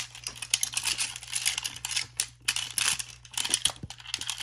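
Plastic crinkling and rustling with quick irregular clicks, as a small clear-plastic-wrapped toy is pushed into a hard plastic toy dinosaur's jaws.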